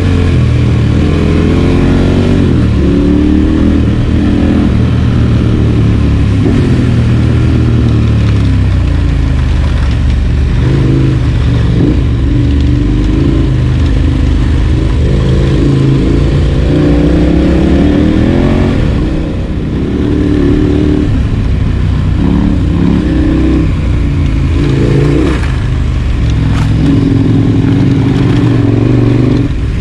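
Adventure motorcycle engine running under way, its revs climbing and dropping again and again as the throttle is worked, with a short easing-off about two-thirds of the way through.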